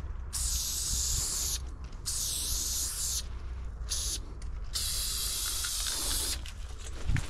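Aerosol spray-paint can hissing in four bursts, the third one short, as white paint is sprayed onto a freight car, over a steady low rumble. A short bump near the end.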